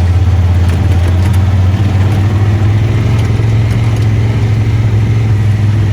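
ATV engine running steadily with a constant low drone, heard from on board while riding.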